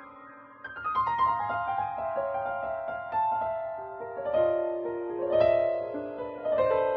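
Solo piano background music: after a brief hush, a run of falling notes, then notes held and overlapping into soft chords.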